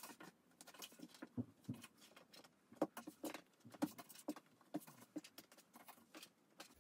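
Faint, irregular light taps and rustles of cotton fabric layers being handled and pinned together on a cutting mat, with pins clicking as they go in.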